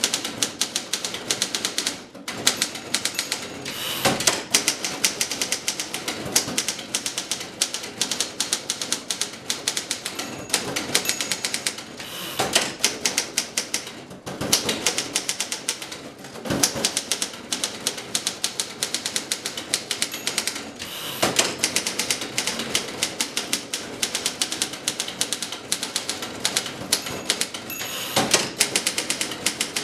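1939 Imperial 50 standard typewriter being typed on at a steady, fast pace: a dense run of typebar strikes on the platen, broken by short pauses and a few heavier strokes every few seconds.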